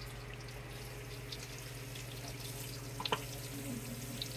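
Breaded chicken schnitzels shallow-frying in hot oil in two pans: a steady sizzle with scattered small pops and a sharper crackle about three seconds in.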